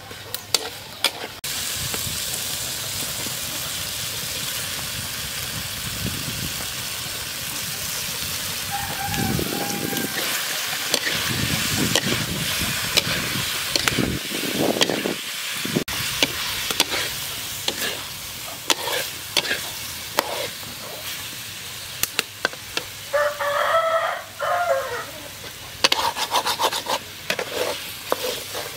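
Stir-fry in a metal wok: chicken gizzards, green bell pepper and carrot sizzling steadily, with a spatula scraping and clacking against the pan as it tosses them. The sizzling starts abruptly about a second and a half in. A rooster crows once toward the end.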